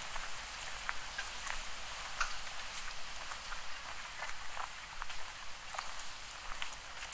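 Footsteps of a person walking along a trail, light irregular steps about two a second, over a steady hiss.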